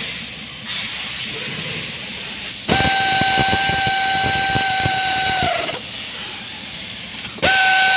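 Air hissing out in two loud blasts, each carrying a steady whistle. The first, about three seconds long, sags in pitch as it cuts off; the second starts near the end. A softer hiss comes before them.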